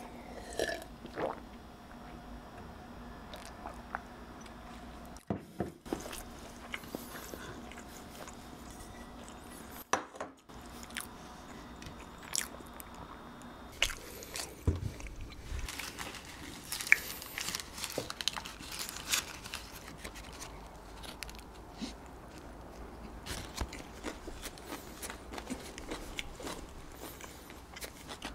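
Close-miked eating sounds: swallowing from a glass of milk, then the wooden serving board is dragged across the table, then many small bites and wet chewing of soft bakery food with occasional crunches.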